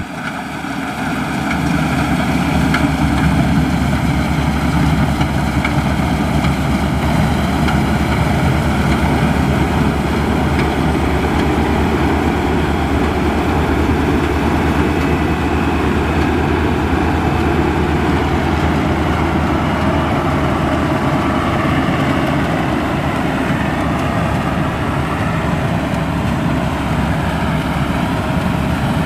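Maxxi Bimo Xtreme combine harvester running at full throttle while harvesting rice, engine and threshing machinery together. It gets louder over the first two seconds, then runs steadily.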